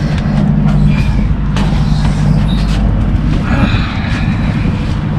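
Steady low drone of a vessel's onboard machinery, with scattered rustles and scrapes of thick rope strands being handled.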